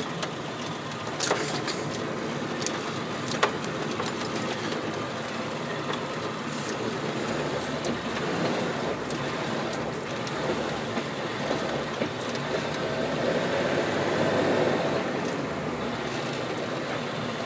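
A vehicle driving on a dirt track, heard from inside the cab: steady engine and tyre noise, with a few sharp clicks and knocks in the first few seconds.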